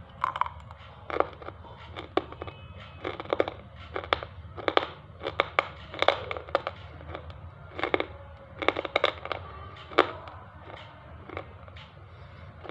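Black slate pieces being bitten and chewed with the mouth close to the microphone: a run of sharp, irregular crunches and cracks in quick clusters, thinning out near the end.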